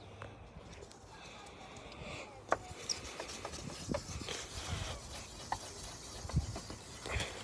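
Sandpaper rubbing by hand on a plastic car headlight lens: a faint scrubbing rasp with scattered small ticks, picking up about two and a half seconds in.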